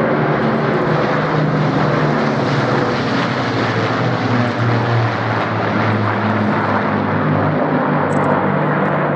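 Avro Lancaster bombers flying over, the drone of their four-engined Merlin piston engines and propellers running steadily, with the engine tones drifting slightly in pitch as they pass.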